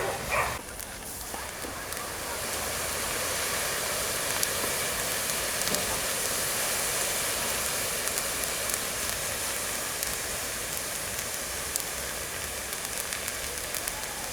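Campfire of wood and charcoal burning with a steady hiss as potassium nitrate burns in it, with scattered crackles. The hiss builds up over the first two seconds or so and then holds.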